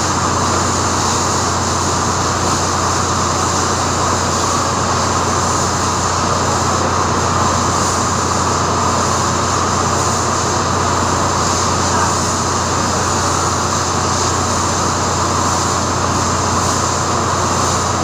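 Steady, loud machinery din with a constant low hum and an even hiss above it.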